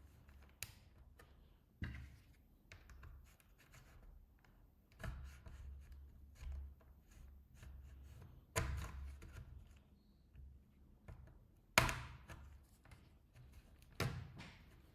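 Plastic pry tool working at a Monster gaming laptop's back panel: scattered plastic clicks, scrapes and handling knocks, with the sharpest snap about twelve seconds in.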